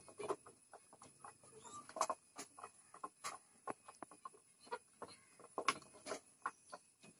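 A flock of pigeons pecking grain off a dirt floor: many quick, irregular taps and clicks of beaks on the ground and grain.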